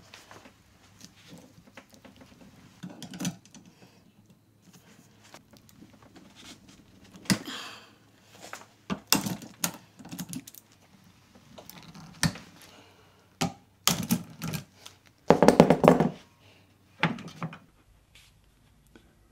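Sharp clicks and knocks of a hand lug crimping tool and bench vise while a copper lug is crimped onto heavy red battery cable, scattered at first and growing denser, with the loudest short clatter near the end.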